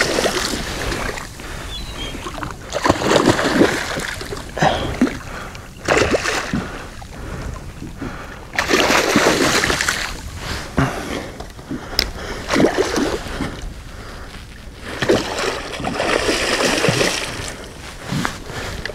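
A hooked white seabass thrashing at the surface beside a kayak, splashing water in irregular bursts every few seconds.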